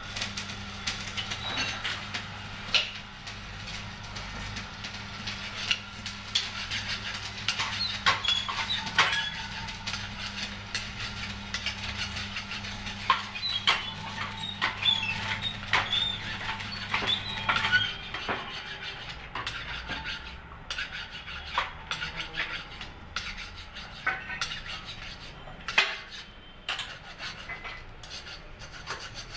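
Metal parts clinking and knocking as a car's front steering knuckle and steel press tooling are handled on a hydraulic press bed, with short metallic rings. A steady low hum runs underneath and stops about two-thirds of the way through.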